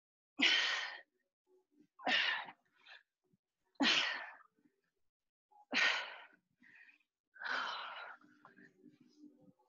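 A woman's sharp, breathy exhales from exertion, five of them about every second and three-quarters, one forced breath with each repetition of a plank-to-knee-drive exercise.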